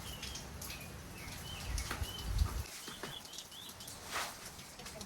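Steady rain with scattered drop patter, and a small bird chirping repeatedly in short high notes. A low rumble swells about two seconds in.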